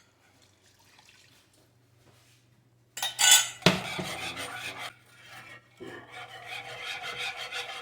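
A kitchen cup being cleaned: after a few seconds of near silence, rubbing and scrubbing against the cup with a knock, then more rubbing with a steady ringing note near the end.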